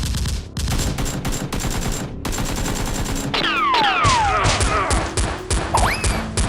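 Rapid bursts of automatic gunfire. From about halfway, several falling whistling tones come in over the shots.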